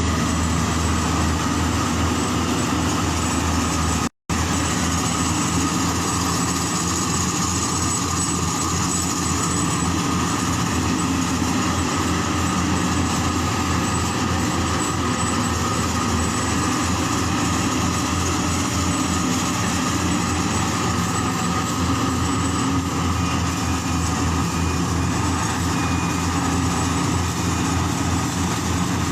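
A motor engine running steadily, with an even droning hum. It breaks off completely for an instant about four seconds in.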